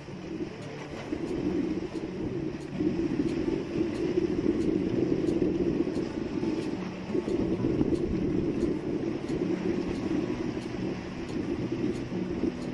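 An outrigger fishing boat's diesel engine running steadily, a low drone with a constant hum and no change in speed.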